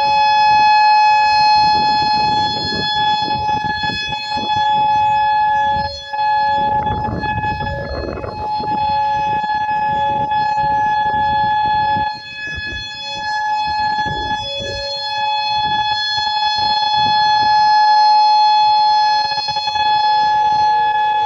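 Whelen 4004 electronic outdoor warning siren sounding a steady high tone during a test, with a second, lower steady tone coming and going and gusty low noise underneath. Near the end another siren's tone starts falling in pitch as it winds down.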